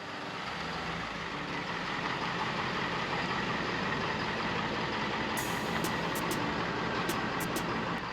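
Motor vehicle on the move: a steady rumble of engine and road noise.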